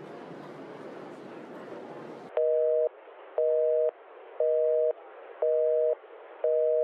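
Telephone busy signal heard through the line: a two-note tone beeping in half-second pulses about once a second, five times, starting a little over two seconds in after a stretch of steady room noise.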